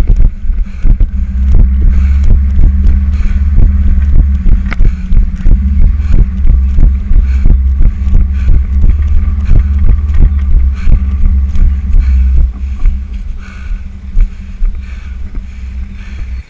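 Heavy wind rumble on a camera microphone worn by a running person, with a regular knock about three times a second as footfalls jolt the camera.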